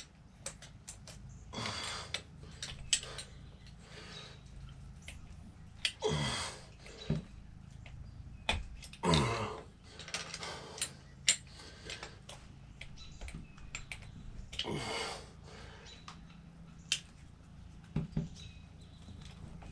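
Metal hand tools, a screwdriver and wrench, working on motorcycle parts: scattered clicks, knocks and clinks with a few longer scraping strokes.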